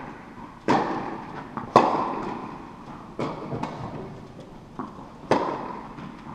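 Tennis ball being struck by rackets and bouncing on the court during a rally: a series of sharp hits about a second apart with fainter knocks between, each hit echoing in the big tennis hall.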